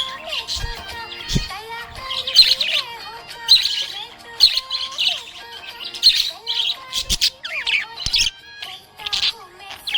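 Budgerigars chirping and warbling in quick bursts of high chirps, about one burst a second, with faint background music underneath.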